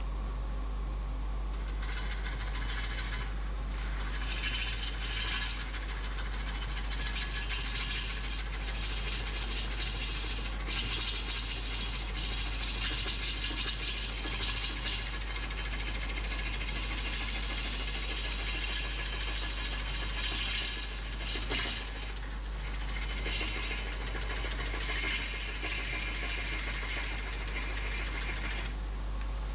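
Gouge cutting a green birch bowl on a wood lathe: a steady hiss of the cut starting about two seconds in, broken by a few short pauses and stopping near the end, over the low hum of the lathe running.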